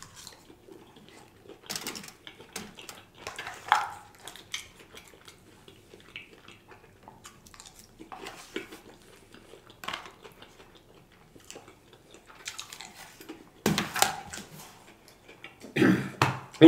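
Close-miked eating: a metal fork scraping and clicking in an aluminium foil pan, with chewing and mouth sounds, in scattered short bursts that are louder near the end.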